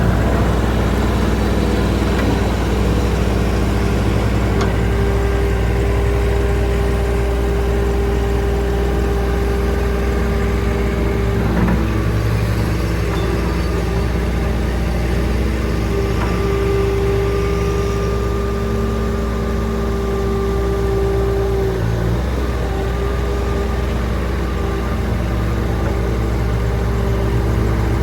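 Bobcat S450 skid steer's diesel engine running steadily, with a higher whine that comes in and fades out twice.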